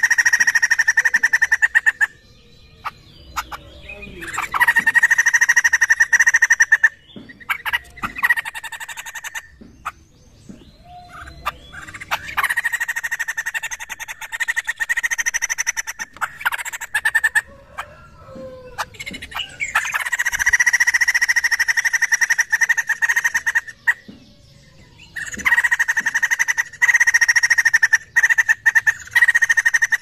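White-crested laughingthrush calling in loud bursts of rapid chattering, each burst lasting a few seconds, with short pauses between them.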